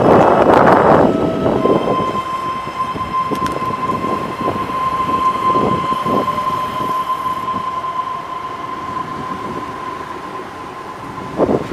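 TVZ-built electric commuter train moving past at close range: a loud rush of noise for the first second or so, then a steady high whine that holds while the overall sound slowly fades as the train draws away.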